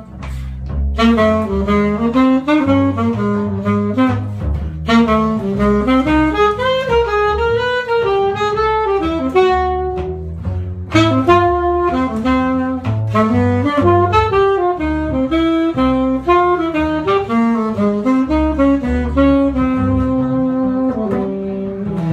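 Jazz arpeggio exercise played as a continuous run of quick notes on a single melodic instrument, each chord tone reached by a chromatic approach note in bebop style, over a lower accompanying line.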